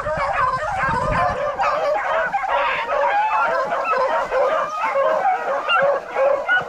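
A pack of rabbit-hunting hounds baying on a hot trail, many dogs calling at once in overlapping, rising and falling voices as they run the rabbit's scent.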